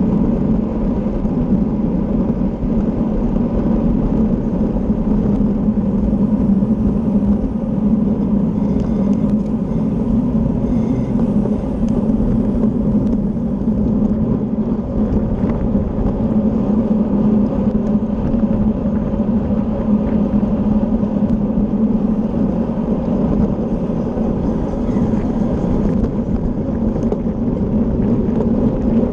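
Steady rush of wind on the microphone with the hum of a road bicycle's tyres and drivetrain, riding at race speed.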